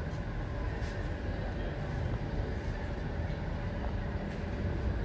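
Train at a station platform, a steady low rumble with a faint hum, and a couple of faint high ticks.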